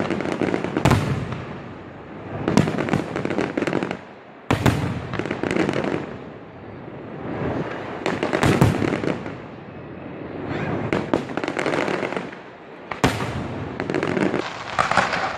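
Aerial fireworks shells bursting overhead: a series of sharp booms a few seconds apart, each followed by crackling and a rumble that dies away slowly.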